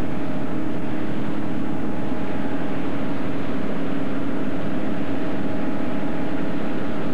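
Steady drone of a moving vehicle's engine and running noise, heard from inside, holding an even pitch throughout.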